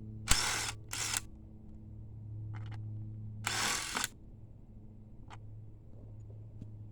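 Socket wrench with a deep-well 10 mm socket working the upper intake plenum bolts of a 5.7 Vortec V8. Three short bursts of ratcheting noise, two close together near the start and one about three and a half seconds in, with a few light clicks after.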